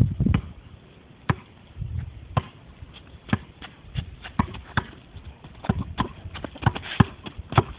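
A basketball bouncing on hard ground: a string of sharp, separate knocks at an uneven pace, roughly one a second.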